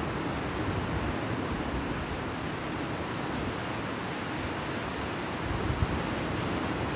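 Steady wash of sea surf on the beach, mixed with wind rumbling on the microphone, with a brief low bump near the end.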